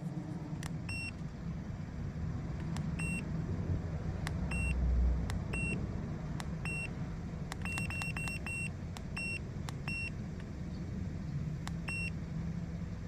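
A 2016 Kia Soul's 1.6-litre four-cylinder engine runs with a steady low hum. The engine is misfiring because its ignition coils on cylinders 3 and 4 are faulty. Over it, a diagnostic scan tool gives short beeps, some single and some in quick runs of three or four, with light button clicks.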